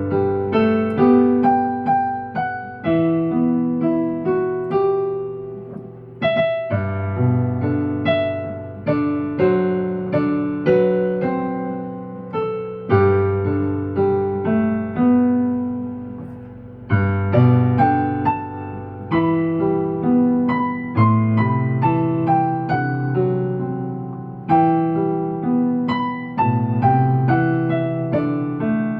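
Piano playing a slow ballad instrumentally: a melody over broken chords and held bass notes, each note struck and dying away.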